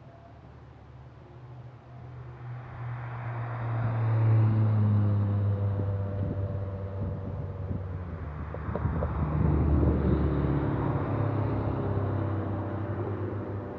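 Cars driving past on the road one after another. The engine note and tyre noise swell to a peak about four seconds in and again about ten seconds in, then fade.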